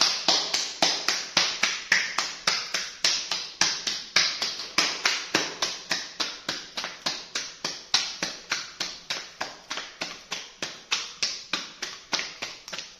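Hands slapping a ball of wheat-flour roti dough back and forth between the palms to flatten it into a round flatbread: a steady rhythm of soft claps, about four a second, growing fainter near the end.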